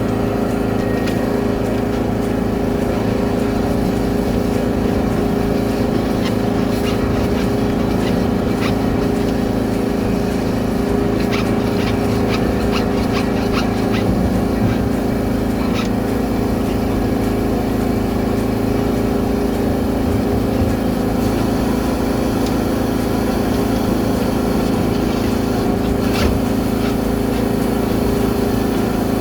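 High-pressure drain-jetting machine running steadily, a constant motor-and-pump hum with a few light clicks and knocks over it.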